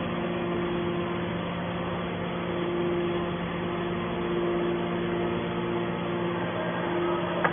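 Hydraulic power unit of a horizontal scrap metal baler running with a steady hum, and a higher tone that drops out and comes back several times.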